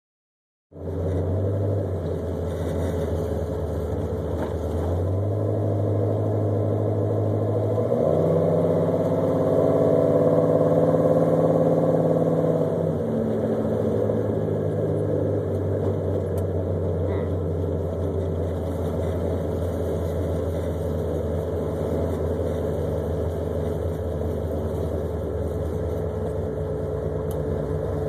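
Pontiac 428 V8 of a 1975 Trans Am, with a Holley/Edelbrock carburettor, running under light load at low road speed, heard from the hood beside its open-element air cleaner. The revs pick up about eight seconds in, hold higher for a few seconds, then drop back to a steady cruise. The carburettor tuning is still not quite right, in the owner's words.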